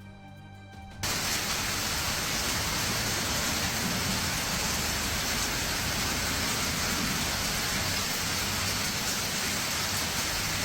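Background music for about a second, then a sudden cut to the loud, steady, dense hiss of a heavy storm downpour pelting down.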